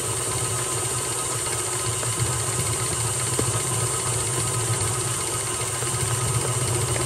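Electric stand mixer running steadily at constant speed, beating a stiff cookie dough, with a strong low motor hum.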